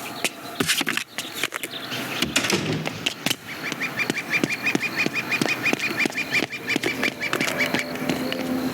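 Foley-style sound effects: scattered sharp clicks and knocks, then from about three seconds in a rapid, even run of short squeaky, quack-like pulses, about five a second, lasting some four seconds.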